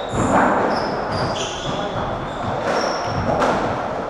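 Rubber-soled court shoes squeaking on a sprung wooden squash-court floor, with a few dull thuds and voices in the background, all echoing in a large hall.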